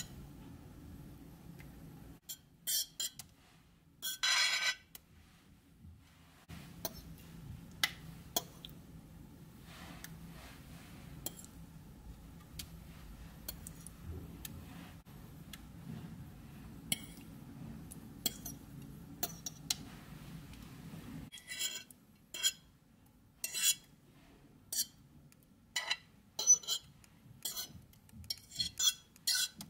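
Metal fork clinking and scraping against a ceramic plate in short, irregular strikes as it pushes jelly cubes off, the strikes coming thicker near the end.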